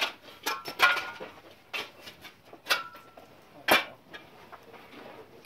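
A scattering of about six light clinks and knocks from small hard objects, a few with a brief ring.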